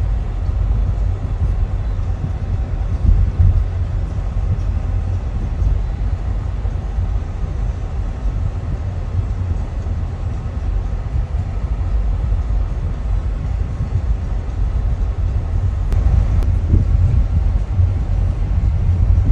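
Steady low rumble of a park land train on the move, its tractor unit running and its carriages rolling along.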